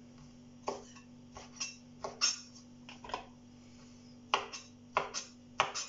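Kitchen knife cutting peeled king prawns on a plastic cutting board: about a dozen short, sharp knocks of the blade on the board at an uneven pace.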